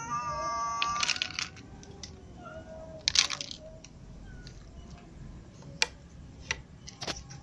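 A cat meowing through the first second, one long gliding call, then scattered sharp clicks and crunches of dry cat food being handled and eaten from plastic bowls, loudest about three seconds in, with a few faint short mews.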